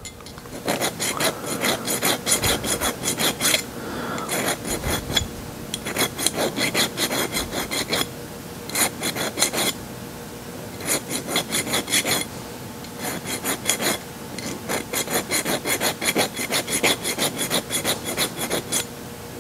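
Hand file rasping along the edge of a small metal strip to remove a burr: quick, short strokes, several a second, in runs of a few seconds separated by brief pauses. The file is freshly sharp and cutting the metal.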